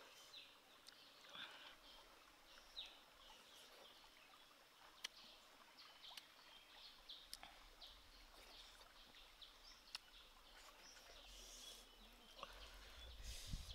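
Near silence: faint outdoor ambience with scattered short bird chirps and a few soft clicks.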